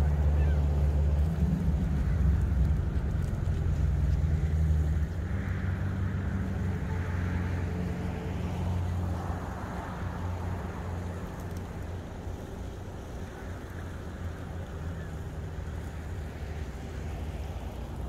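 Steady low rumble, louder for the first five seconds and then settling lower.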